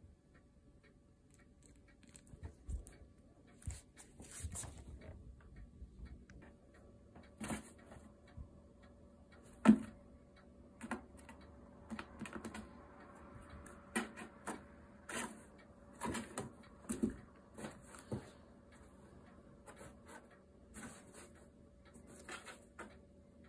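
Kittens playing in and around a cardboard box: irregular taps, scratches and rustles of paws and claws on cardboard, with one sharp knock about ten seconds in.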